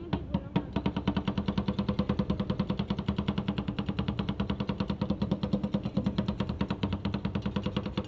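Two metal spatulas chopping strawberries into cream on the steel freezing plate of a rolled ice cream pan. Rapid, even clacks of metal on metal start at about four a second and pick up to about eight a second about a second in.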